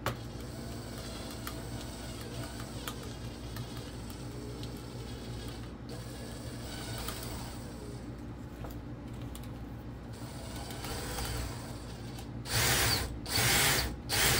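Cordless drill driving a drill-mounted mini chainsaw attachment, running steadily with a mechanical noise from the attachment, which the owner thinks means it just needs lubrication. It gets louder in a few short spurts near the end.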